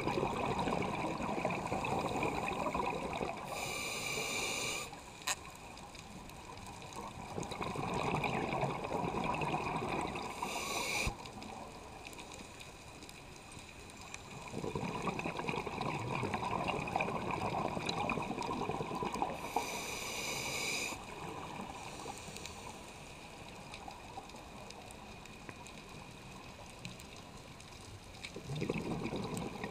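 Scuba regulator breathing underwater: long bubbling rushes of air repeat every several seconds, with quieter gaps between them and short high hisses at the end of three of them.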